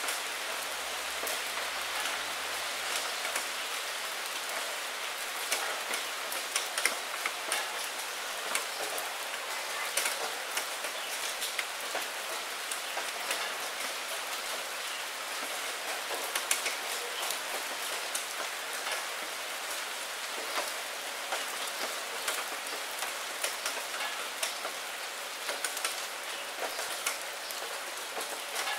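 Steady rain, an even hiss dotted with many separate sharp drop taps throughout.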